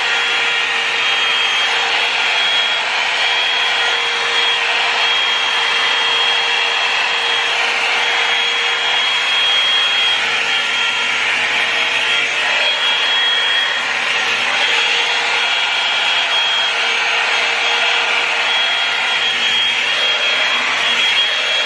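Revlon One-Step hair dryer and volumizer running steadily: a constant rush of blown air with a thin, high motor whine, with the bristles rubbing as the brush is drawn through long hair.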